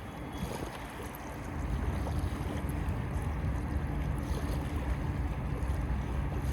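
Steady low rumble with a faint droning motor hum, growing louder about a second and a half in, with wind on the microphone.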